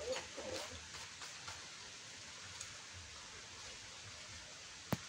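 Steady faint hiss of background noise, with a few soft ticks in the first second and one sharp click near the end.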